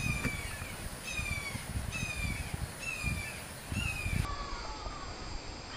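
A bird's repeated harsh calls, about one a second, each falling slightly in pitch; after a cut about four seconds in, the calls come lower and longer.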